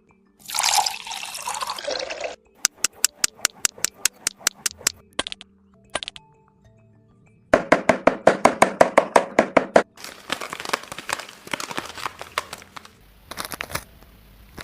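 Hand-work noises of miniature bricklaying with cement: a short pour of loose material, then runs of quick, evenly spaced taps and scrapes, the densest run about halfway through.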